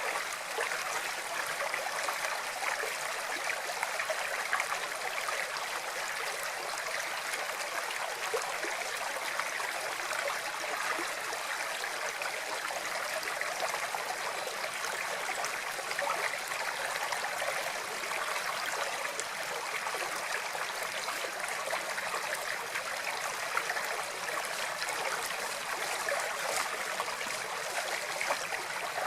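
Flowing water running steadily, an even, unbroken rush with no low rumble.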